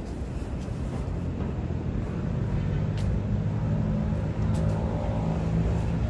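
A large bus engine idling: a steady low hum that grows louder about two seconds in.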